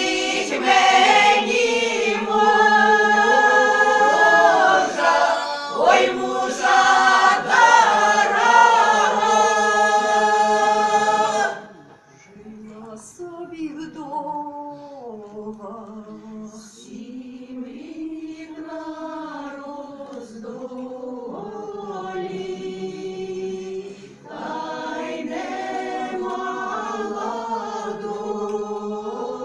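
Ukrainian folk choir singing a folk song a cappella. About twelve seconds in, the singing drops suddenly to a much softer passage, then comes back louder near the end.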